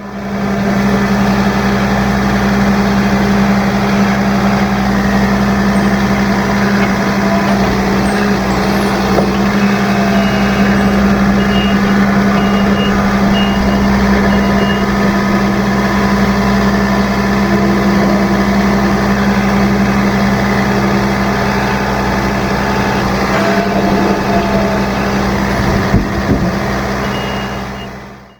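An engine running steadily under load, a deep, even drone, with a short run of high, evenly spaced beeps partway through.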